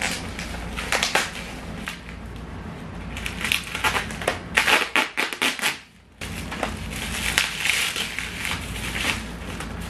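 Bubble wrap and plastic wrapping crinkling and crackling in irregular bursts as a taped parcel is unwrapped by hand, with a brief drop-out about six seconds in.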